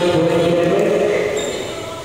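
Basketball game buzzer sounding one steady, harsh horn tone, which fades in the hall's echo a little after a second in.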